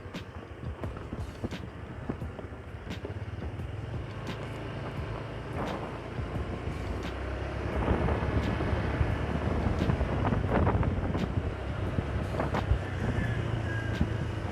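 Honda Click 150i motor scooter on the move: steady engine and road rumble with wind buffeting the microphone, growing louder about halfway through.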